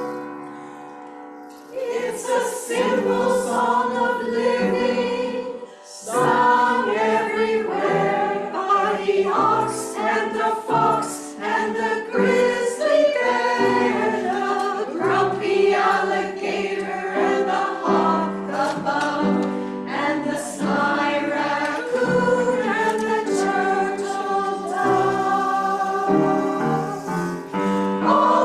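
Choir singing a song, pausing briefly between phrases near the start and about six seconds in.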